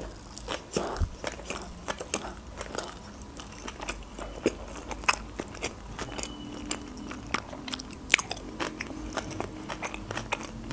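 A person chewing a mouthful of Philadelphia sushi roll close to the microphone, with many short sharp mouth clicks and smacks.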